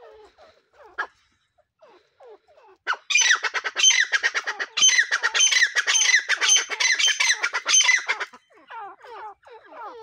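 A pair of grey francolins (grey partridge, 'teetar') calling. Soft falling notes come first. About three seconds in, a loud, rapid run of repeated notes starts and lasts about five seconds, then eases back to softer calls near the end.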